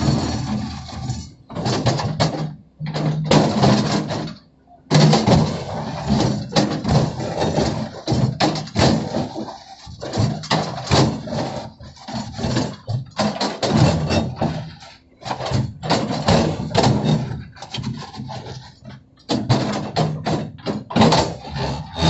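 Tracked excavator digging a trench: a low engine drone with the bucket scraping and clattering through soil and stones in irregular knocks. It drops out briefly twice, a few seconds in.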